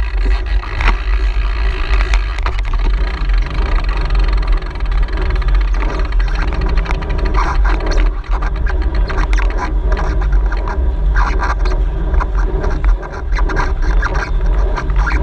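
Wind buffeting the microphone of a GoPro on a moving bicycle: a steady low rumble, with road noise and scattered rattles and ticks from the bike.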